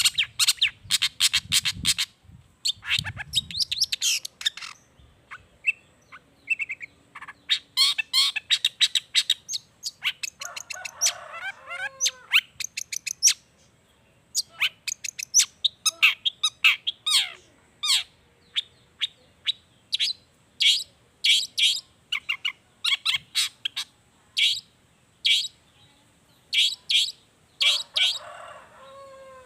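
Long-tailed shrike (cendet) singing a varied mimicking song: fast runs of sharp, high chirps broken by short pauses, with a harsher call sliding downward about eleven seconds in and again near the end.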